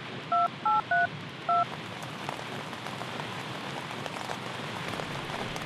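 Keypad tones of a basic mobile phone: four short two-tone beeps as a phone number is typed in, the last a little after the first three. Steady rain runs underneath.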